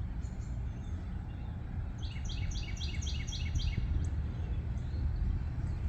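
Steady low wind rumble on the microphone, with a bird singing a quick run of short, evenly repeated chirps about two seconds in, lasting about a second and a half.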